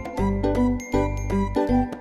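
Upbeat background music with a bright, tinkling melody of quick short notes over a bouncing bass line.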